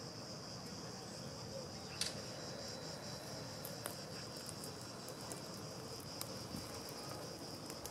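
Insects chirring in a steady high-pitched drone, with a single sharp click about two seconds in.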